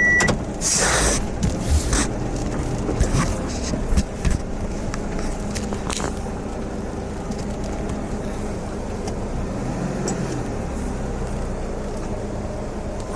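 A motor vehicle's engine running steadily. A short loud rush of noise comes about a second in, and several sharp knocks fall in the first four seconds.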